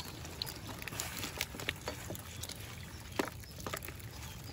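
Freshly trapped fish flapping in the bottom of a small boat, with irregular wet slaps, knocks and water patter.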